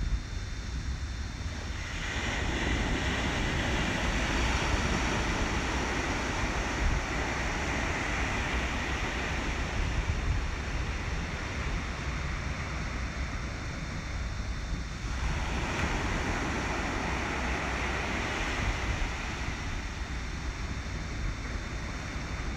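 Wind and surf noise: a steady rushing hiss over a low rumble. It swells about two seconds in and again about fifteen seconds in.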